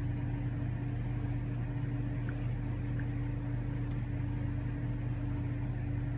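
Steady low mechanical hum with a constant tone, unchanging throughout.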